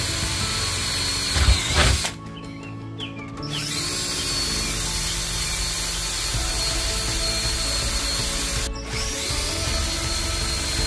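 Cordless drill boring rivet holes through a fridge slide's metal base plate. The motor whines steadily, stops about two seconds in, and runs again from about four seconds until near the end with a brief stop.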